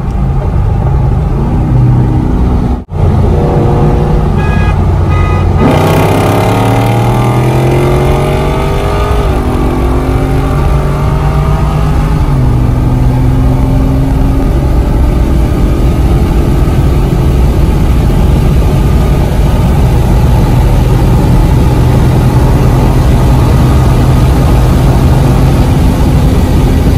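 Chevrolet Camaro SS's 6.2-litre V8 heard from inside the cabin. It runs steadily, then about six seconds in it opens up at full throttle, its pitch climbing for a few seconds, before settling into a steady drone at speed.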